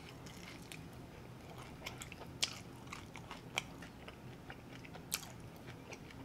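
Close-up chewing of a fried chicken wing: quiet mouth sounds with scattered sharp clicks and crunches, a few louder ones about two and a half, three and a half and five seconds in.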